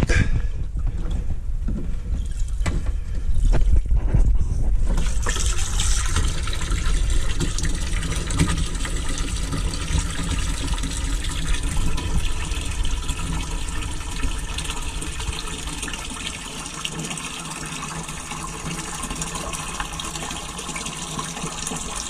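Water from a garden hose running steadily through the toilet bowl into a 20-litre Thetford cassette tank, slowly filling it. There are a few knocks and some low rumble in the first few seconds.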